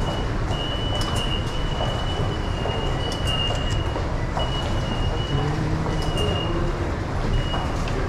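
Busy subway station concourse by the ticket gates: a constant din of crowd footsteps and movement. A thin, steady high-pitched tone sounds and breaks off about six times, and a few short, sharp high clicks cut through.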